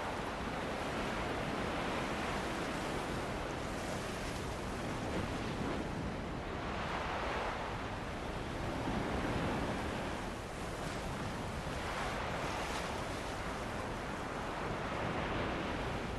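Ocean surf washing ashore under a steady wind: a continuous rush that swells and eases every few seconds as waves break.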